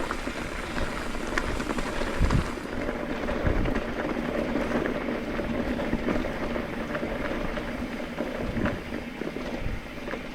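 Mountain bike riding over a dirt trail: steady rumble of tyres and bike rattle with wind on the microphone, and a few knocks over bumps, about two, three and a half and nine seconds in.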